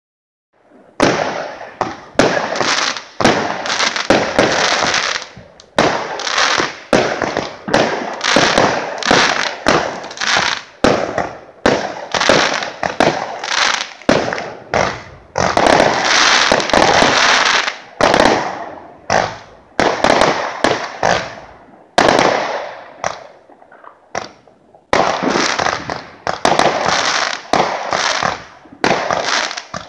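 Aerial fireworks going off in quick succession: sharp bangs of bursting shells, one after another, with crackling between them. They start about a second in, with a short lull a few seconds before the end.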